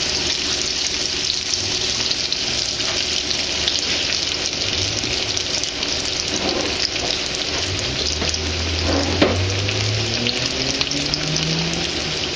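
Breaded bluegill fillets pan-frying in oil heated to about 360 degrees over medium-high heat: a steady, dense sizzle and crackle.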